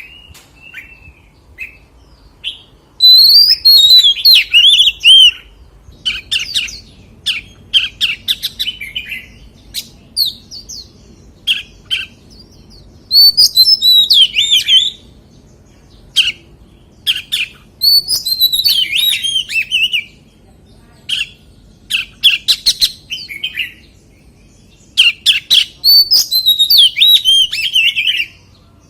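Oriental magpie-robin singing: loud phrases of rich, quick whistled notes sweeping up and down, in four longer bursts with short single notes and pauses between them.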